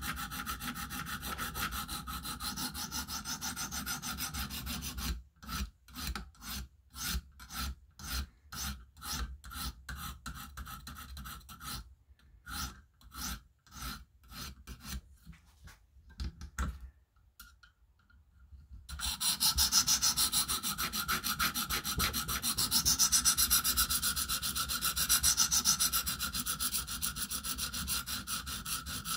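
100-grit stone of a KME guided sharpener scraping back and forth along an M390 steel knife edge under only the stone's own weight, refining the scratch pattern. Quick continuous strokes at first, separate strokes about twice a second from around five seconds in, a short pause a little past halfway, then faster, louder strokes.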